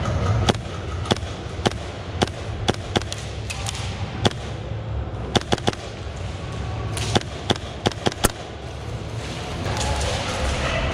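Airsoft guns firing single shots: more than a dozen sharp cracks at uneven intervals, some in quick runs of two or three, over a steady low hum.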